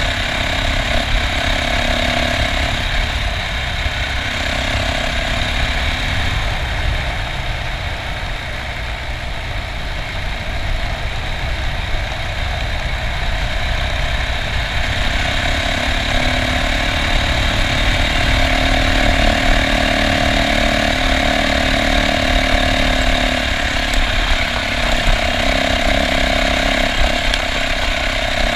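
Yamaha dirt bike engine running as the bike rides along a dirt road, with a rough rush of wind on the microphone. The engine eases off for a few seconds about a quarter of the way in, then pulls harder again from about halfway.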